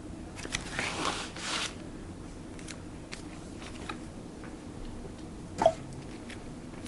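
A paper mailer and the cards inside being handled: about a second of rustling, then scattered small clicks and taps, with one sharper click near the end.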